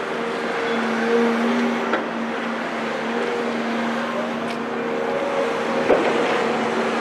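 Diesel engines of Caterpillar hydraulic crawler excavators running steadily while digging sand, with a sharp knock about six seconds in.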